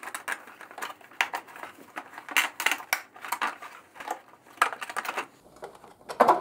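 Irregular clicks, knocks and clatter of hand tools and plastic body-panel screws and clips being worked loose on a motorcycle.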